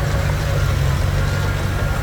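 Diesel engine of a Komatsu D21P bulldozer running steadily, a low, even engine hum.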